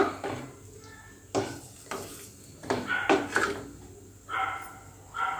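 Wooden spatula stirring rice, vegetables and boiling water in a metal pressure cooker pot. It knocks against the pot's side a few times.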